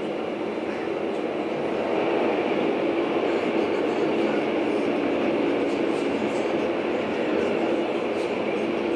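Steady running noise of a moving passenger train heard inside the carriage: wheels on rails and the rumble of the car, growing a little louder about two seconds in.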